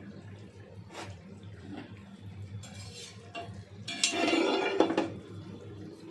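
Metal cooking utensils clinking and scraping against a pot: a sharp click about a second in, then a louder clattering, scraping burst lasting about a second, about four seconds in, over a steady low hum.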